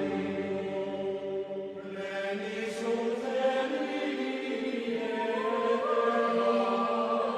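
Background music of slow, sustained choir-like chanting voices, with held notes that change pitch slowly.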